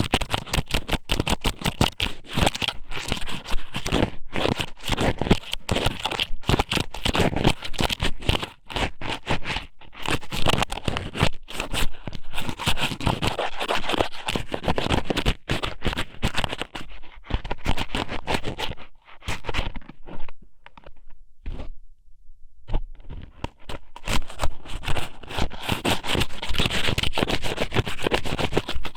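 Strips of dried squid (ika sōmen) scratching and rustling inside a binaural ear microphone, in dense rapid bursts, thinning out to quieter scattered scratches in the middle before picking up again.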